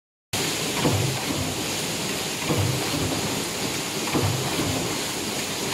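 Stamping press running a progressive die on cabinet hinge parts: a low thump with each stroke, three times, about every one and a half seconds, over a steady hiss of machine noise.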